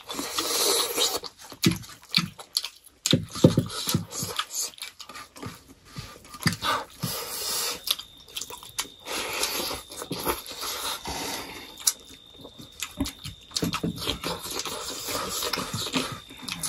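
Close-miked mouth sounds of people eating rice and pork curry by hand: wet chewing and lip smacks, with scattered sharp clicks and small scrapes of fingers on steel plates.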